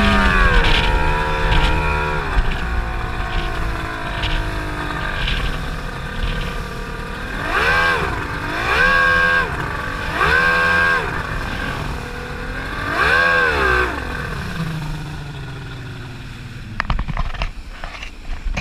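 Speedboat engine easing off from speed, then revved up and down in four quick swells before settling to a lower, steady note. Near the end a run of irregular knocks and thumps.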